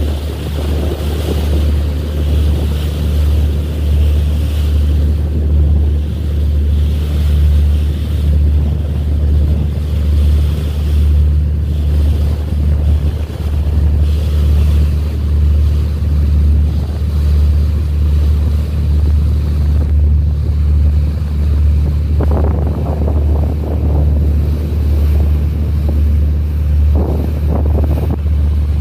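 A small boat's engine running with a steady low drone, with wind buffeting the microphone and sea water rushing past. Two brief louder rushes of water or wind come near the end.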